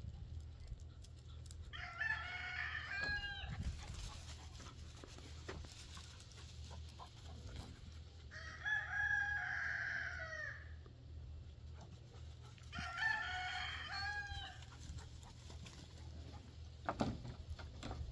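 A rooster crowing three times, each crow about two seconds long and several seconds apart.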